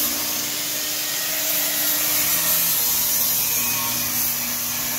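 Angle grinder cutting through the steel wall of a barrel stove made from an old oil tank: a steady, even grinding hiss over the motor's constant whine.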